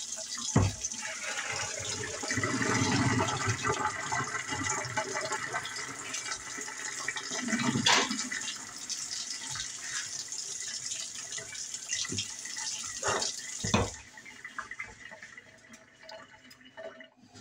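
Pasta cooking water poured from a pot into a kitchen sink: a steady rush and splash of water that stops suddenly a few seconds before the end. A few clunks of the pot come through, the last ones just before the pouring stops.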